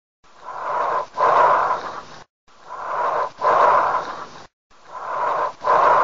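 Auscultated lung sounds, breathing in about three cycles: each an in-breath, a brief pause, then a louder out-breath about as long as the in-breath, the pattern of bronchial breathing.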